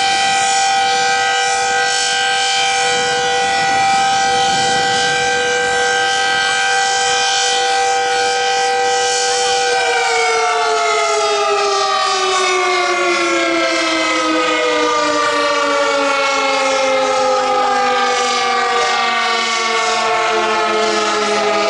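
Decot Red Arrow Model 12 outdoor warning siren sounding the steady full-alert tone, then, about ten seconds in, the tone falls steadily in pitch as the siren winds down at the end of the test.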